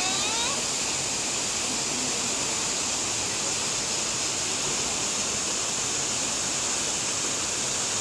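Waterfall rushing steadily: the even roar of Nunobiki Falls pouring down a granite cliff, with a hiss strongest in the high range.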